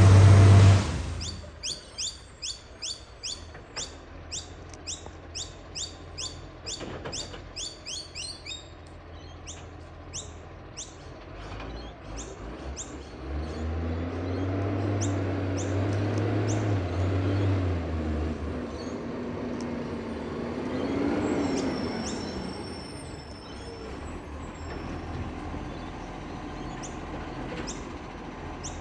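Heavy vehicle engines: one loud at the very start that fades within the first second, then another swelling and passing from about 13 to 18 s, and a third rising about 21 s in. Between them comes a run of sharp high ticks or chirps, about three a second, which stops about 8 s in.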